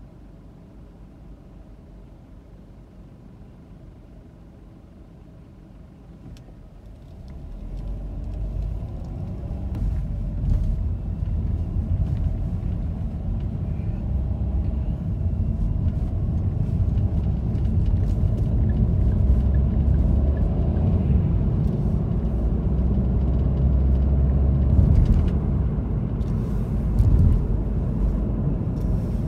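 Car driving noise: a quiet low hum while the car waits at the light, then about seven seconds in the car pulls away and a strong low rumble of engine and tyres builds and holds as it gathers speed. A couple of brief knocks come near the end.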